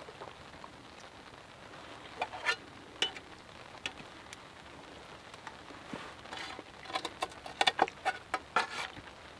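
A metal eating utensil scraping and clinking against a camp plate while someone eats. There are a few scrapes a couple of seconds in, then a quicker run of clinks and scrapes in the last few seconds, over a steady soft hiss.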